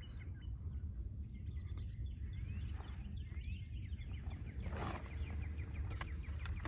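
Wild birds chirping, with a few rising calls and a quick run of short chirps near the end, over a steady low rumble.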